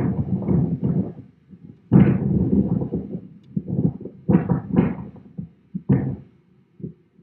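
Hurricane-force wind gusts buffeting a phone's microphone in irregular, loud, low bursts, with short lulls between them that grow longer near the end.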